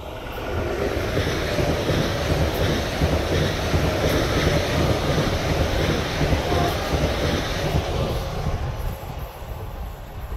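Electric multiple unit passing through at speed: the rolling noise of its wheels on the rails swells about half a second in, holds loud for several seconds, and eases near the end as the train draws away.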